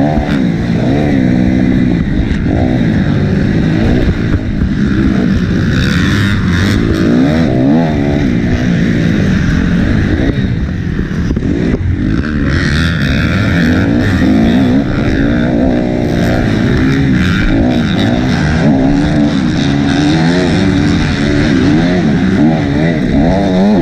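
2008 Suzuki RM-Z250's four-stroke single-cylinder engine running hard, its pitch rising and falling over and over as the rider works the throttle and shifts through gears.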